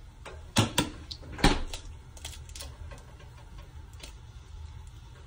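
An egg tapped against the rim of a frying pan to crack it: three sharp knocks in the first second and a half, then a few lighter clicks, over a low steady hum.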